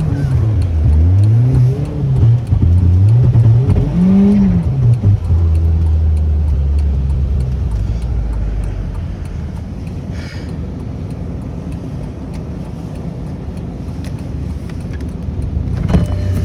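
Car engine revving up and down repeatedly for about five seconds, as in wheelspin and sliding on snow, then settling into a steady lower-rev run that slowly eases off and picks up again near the end.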